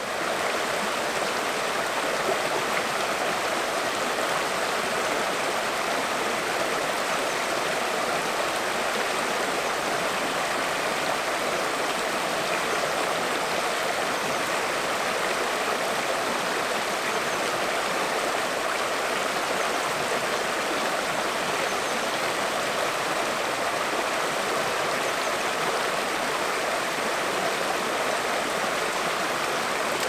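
Rushing water of a small woodland stream, a steady dense splashing that fades up at the very start and then holds level.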